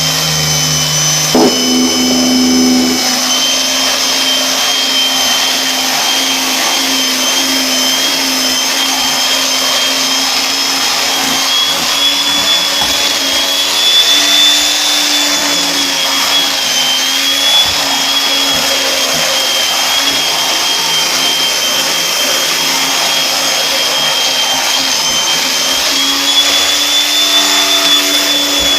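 Vacuum cleaner running steadily, its motor giving a constant high whine over a loud rushing airflow.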